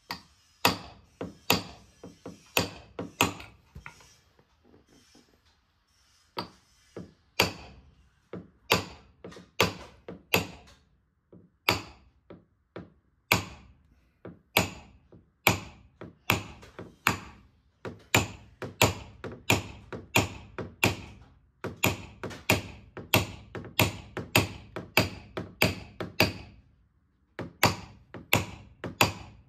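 Hammer tapping a knockdown tool against the steel quarter panel of a classic Ford Thunderbird, a run of sharp metallic taps about two a second with a few short pauses. The blows knock down the high crown of a wave in the panel from the outside, with no pushing from behind because of body filler underneath.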